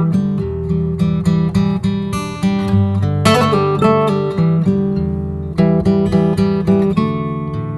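Background music: acoustic guitar picked and strummed in a steady rhythm.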